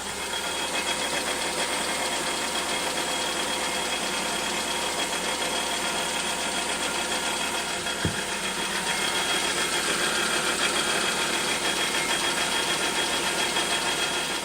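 Hyundai Tucson engine idling after a cold start, mixed with a rattling knock from under the hood. The owner later traces it to the right driveshaft's support bracket, left without its bolts to the engine, which the engine strikes while it vibrates on its mounts when cold.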